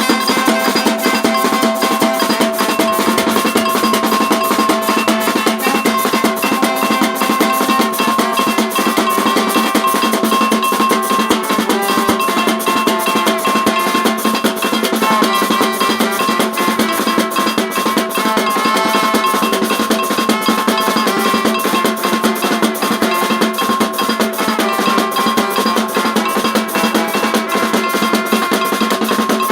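Percussion band playing a fast, steady baque solto (maracatu rural) rhythm on drums, with held melody notes sounding over the beat.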